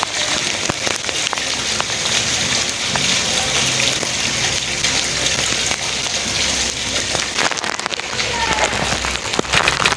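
Steady rain falling on hard surfaces close by: an even hiss dotted with many separate drops ticking.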